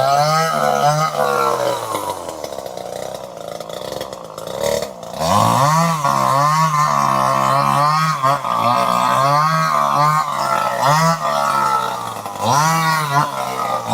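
Two-stroke chainsaw engine running at high revs, its pitch wavering. It eases off for about three seconds near the start, then revs sharply back up and runs high again, dipping briefly near the end.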